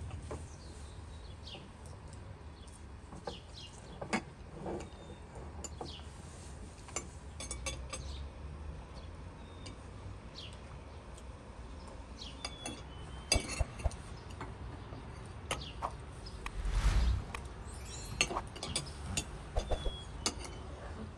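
Forks and spoons clinking against plates and small tea glasses at a table, in scattered short clinks, while birds chirp. About 17 seconds in, a louder rush of noise lasts about half a second.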